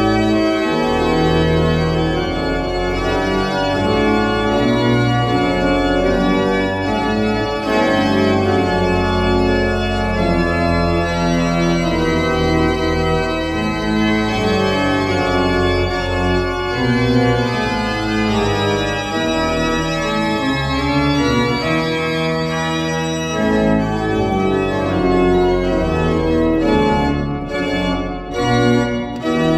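Baroque-type pipe organ, a 1910 Rieger rebuilt with 26 stops on two manuals and pedal, playing an improvisation in sustained chords over a low bass. Brief breaks between chords near the end.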